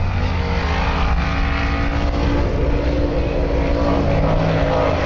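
Off-road race buggy's engine held at high, steady revs as it drives into a river, with the rush of water spray thrown up by its tyres.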